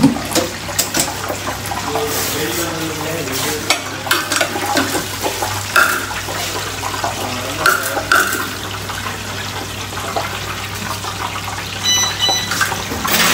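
Hot oil sizzling in a commercial deep fryer, with metal clatter from the wire fry basket and utensils, over a steady low hum. A short electronic beep sounds near the end.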